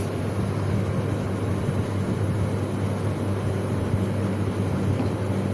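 Steady electric hum with an even airy whoosh over it, as from a kitchen appliance's fan running, while sugar water heats in a steel pot on the cooktop.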